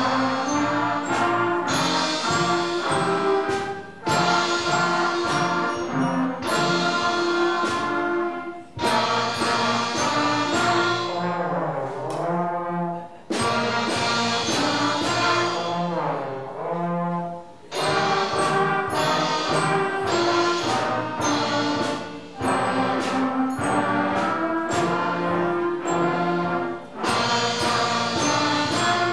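School band playing a brass-led piece in short phrases over a steady beat, with trombone glissandos sliding down and back up several times.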